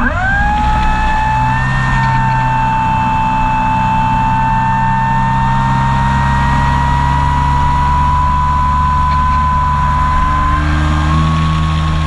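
Model airplane's motor and propeller run at high throttle, heard from on board, with a steady high whine. The pitch jumps up sharply at the start as the throttle opens, then creeps slightly higher over the rest of the flight.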